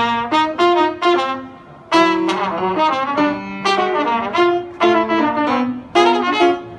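Jazz trumpet playing a melody of separate, sharply attacked notes in short phrases, with a grand piano accompanying underneath.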